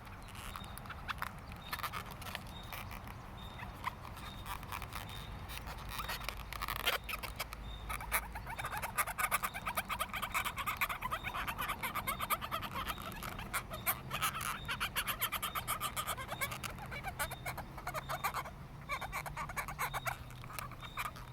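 Black Sharpie marker squeaking in quick back-and-forth scribbling strokes on an inflated latex balloon while colouring it in; the scribbling gets busier and louder about eight seconds in.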